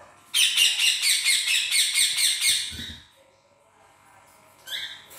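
A small dog and a kitten play-fighting: a loud, rapid run of high-pitched squeals lasting about two and a half seconds, then one short squeak near the end.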